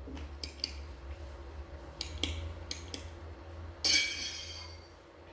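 A few light clinks, then a sudden crash of something brittle shattering about four seconds in, its high ringing dying away over about a second. The sound is of breakage, which the narrator guesses to be a plate.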